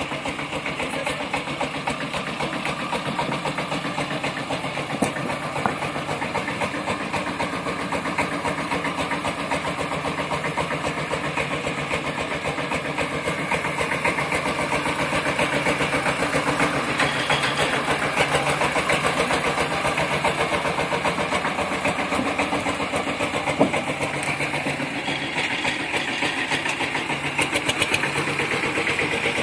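Forte 18 hp mini tractor's engine running steadily while it tows a trailer loaded with logs, a little louder through the middle.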